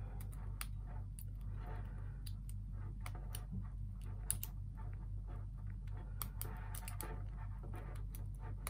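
Lock pick and tension wrench working the pins inside a cheap unbranded brass pin-tumbler padlock, making small irregular clicks and scrapes of metal on metal. A steady low hum runs underneath.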